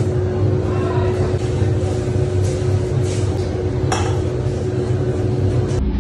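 Steady low rumble with a thin steady hum over it, and light clinks of kitchen utensils, the clearest about four seconds in.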